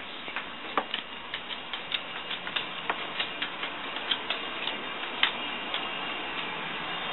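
Dog's claws clicking on a hardwood floor as a yellow Lab–Chow mix walks along, irregular ticks a few times a second.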